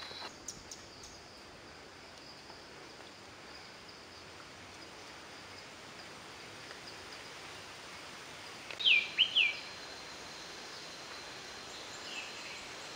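Quiet forest ambience with a steady hiss and a thin, steady high tone. About nine seconds in, a bird gives three quick, loud, downward-sliding whistled notes, and a fainter call follows near the end.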